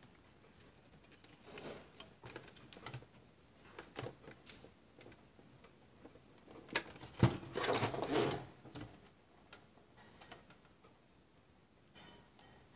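Hands working a new self-adhesive cutting strip into a Silhouette cutting machine: scattered light clicks, taps and rustles of plastic, busiest about seven to eight seconds in.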